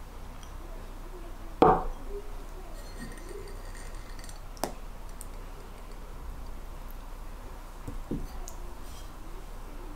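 Glassware knocking and clinking as small glass dishes are handled and set down: a loud knock about a second and a half in, a sharp clink near the middle and a softer knock about eight seconds in.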